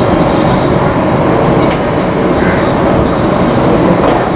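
Steady, loud noise from a standing WP-class steam locomotive, an even hiss and rumble with no rhythm.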